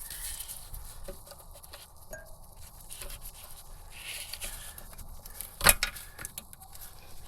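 Hand tools and metal parts scraping and clicking under a car while the handbrake cable is worked free, with one sharp metallic knock near the end.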